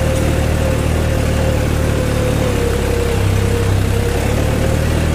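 New Holland 3630 tractor's three-cylinder diesel engine running steadily at high revs under load in second high gear, heard from the driver's seat, with a steady whine over the engine note.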